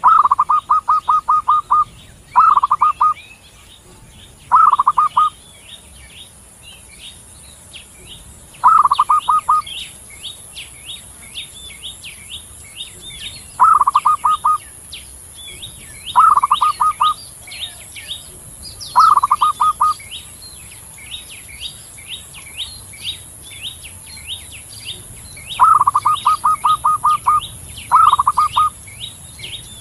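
Zebra dove (perkutut) cooing: about ten separate phrases, each a quick run of staccato pulsed notes, some short and some longer trills. A steady, faint, dense high chirping and a thin high whine run underneath throughout.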